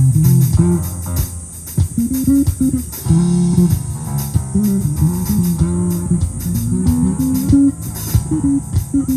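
Live jazz-funk instrumental: an electric bass plays a busy, melodic line high on its neck over drums and ride cymbal.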